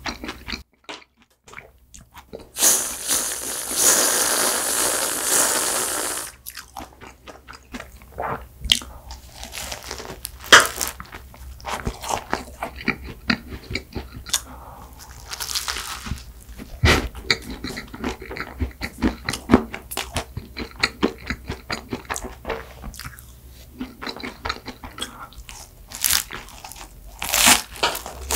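Close-miked eating sounds from biting and chewing a flaky chocolate-coated cream pastry: a long crackling crunch a few seconds in, then wet chewing with many sharp mouth clicks and shorter crunches.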